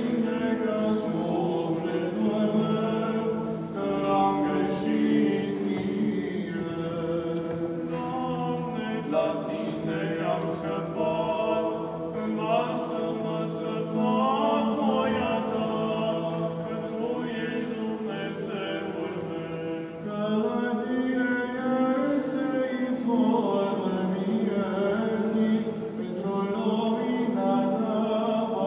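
Orthodox liturgical chant sung a cappella by cantors in a cathedral. Unaccompanied voices move through a slow melody over a low held note.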